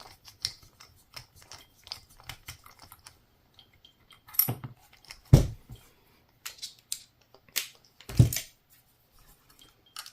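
Hand tools and small metal parts being handled at a workbench: a run of light clicks and taps, then several louder knocks, the loudest about five seconds in and another about eight seconds in.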